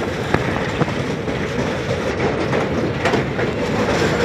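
Passenger train running across a steel girder bridge, heard from aboard: a steady rumble of wheels on rails with a few sharp clacks.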